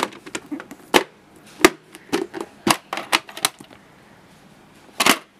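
Sharp plastic clicks and clacks of a VHS cassette and its hard plastic case being handled: a run of irregular taps, with a louder clack near the end.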